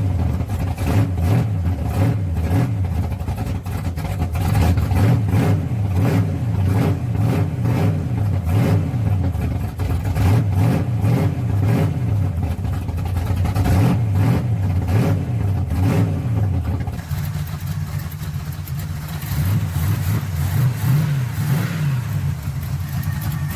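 Chevy 305 small-block V8 with a thumper cam, just started, its speed rising and falling for the first part, then settling to a steady idle about 17 seconds in. With the loose rocker arm tightened, it runs smooth on all eight cylinders.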